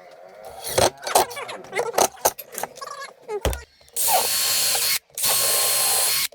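Scattered clicks and knocks of wood and tools being handled, then a power drill running in two steady bursts of about a second each, with a short break between.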